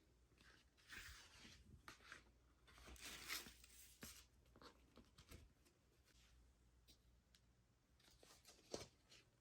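Faint rustling and sliding of paper and cardboard record sleeves being handled, with louder swishes about a second in and again around three seconds, and a light click near the end.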